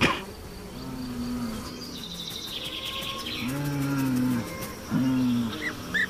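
A bull gives three low, drawn-out calls, the middle one the longest, as ritual provocation of a rival. Insects buzz steadily behind, with a brief burst of rapid high chirping between the calls.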